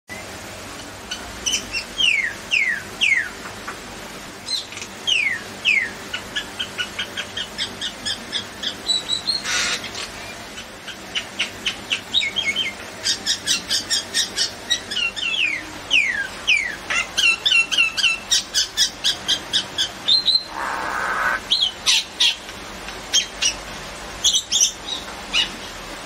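Common myna calling: a string of sharp whistles that slide downward, and runs of rapid repeated chattering notes. Harsh rasping squawks break in near ten seconds and again about twenty seconds in.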